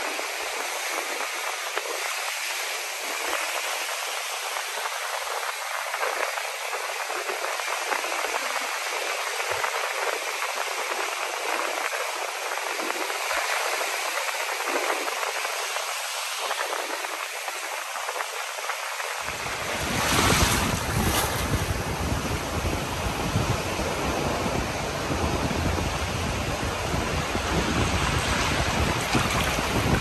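Ocean surf washing on the beach, a steady rushing hiss mixed with wind. About two-thirds of the way through, wind buffets the microphone and adds a low rumble, briefly louder at first.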